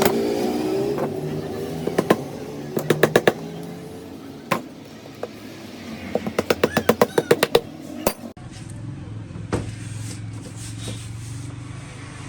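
Staple gun firing in quick bursts of sharp clicks, about eight a second at its fastest, with single knocks between, over a steady low hum.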